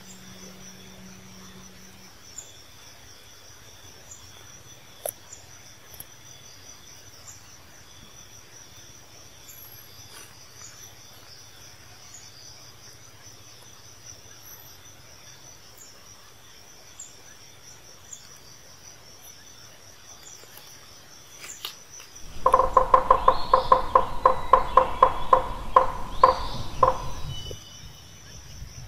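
Steady high trilling of insects in an outdoor chorus. About 22 seconds in, a much louder, rapidly pulsing sound with a steady pitch comes in over it for about five seconds, then stops.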